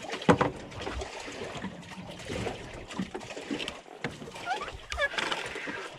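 Water sloshing against a small fishing boat, with scattered knocks, a sharp one just after the start, and a few brief chirps near the end.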